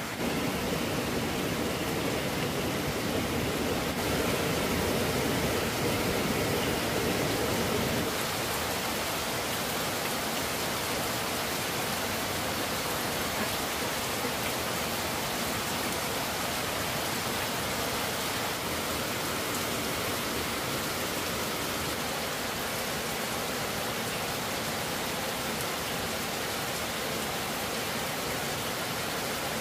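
Steady rushing noise of heavy water, with no pauses. It is a little louder and fuller for the first eight seconds, then settles to an even level.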